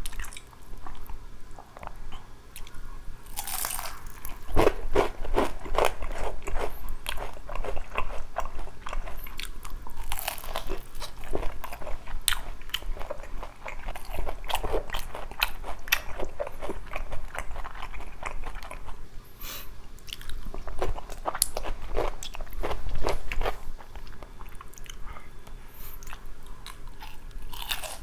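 Close-miked biting and chewing of Korean fried chicken: many sharp, irregular crunches of the crisp coating, in clusters, with wet chewing between them.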